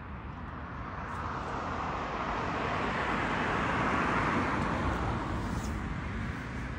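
A car passing on the street: its road noise swells, peaks about four seconds in, and fades away.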